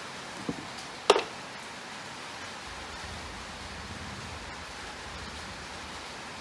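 Steady background hiss with small handling noises from hand work on the opened angle grinder: a soft tap about half a second in, then a sharp click about a second in. A faint low rumble comes in about halfway through.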